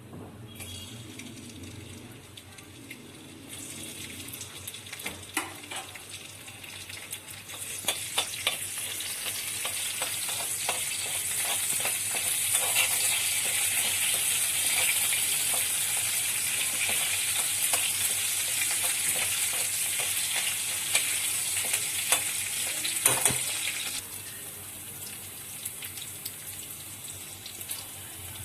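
Food frying in hot oil in a pan, a steady high sizzle with clicks from a utensil stirring. The sizzle grows louder from about four seconds in and drops off sharply near the end.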